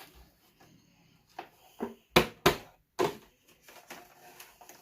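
Hands struggling with hard plastic toy packaging: about five sharp clacks and knocks in the middle, then soft rustling near the end.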